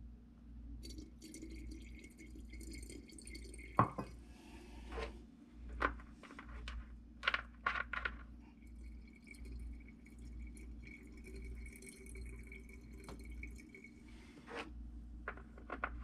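Distilled water trickling from a pouring nozzle into the cells of a flooded lead-acid backup sump pump battery, with scattered clicks and knocks from the cell caps and a glass jar being handled. A faint low hum runs underneath.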